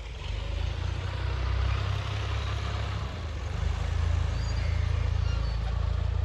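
A motor vehicle's engine running steadily as a low rumble, growing a little louder over the first couple of seconds.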